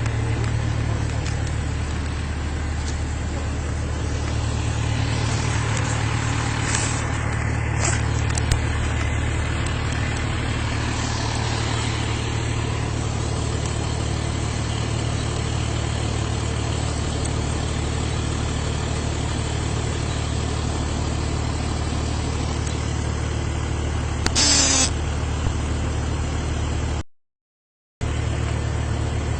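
Car engine idling with a steady low hum. A short, sharp noise comes about twenty-four seconds in, and the sound cuts out completely for about a second near the end.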